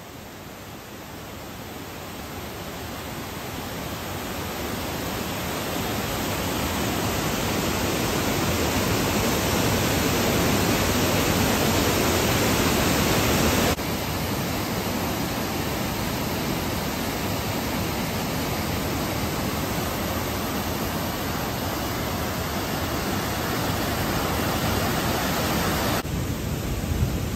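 Floodwater gushing out of concrete dam sluice gates and down the spillway: a steady rush of water that grows louder over the first several seconds and changes abruptly about halfway and again near the end.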